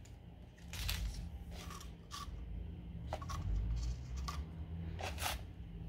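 Hands handling plastic items, an IV infusion set's tubing and a plastic syringe: a string of short rustles, clicks and scrapes, some with a brief squeak, over a low rumble of handling noise.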